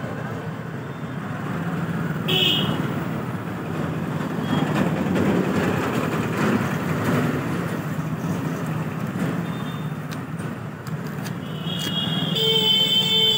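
Road traffic noise with engines running, and vehicle horns honking: a short toot a little over two seconds in and a longer honk near the end.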